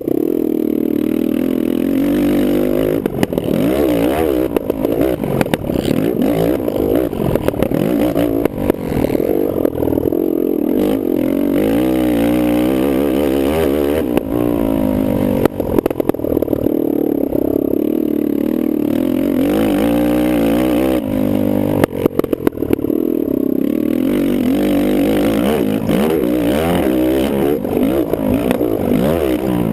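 Kawasaki KFX450R quad's single-cylinder four-stroke engine revving hard, its pitch climbing and falling over and over as the throttle is worked and gears change, with a few sharp knocks and clatters in between.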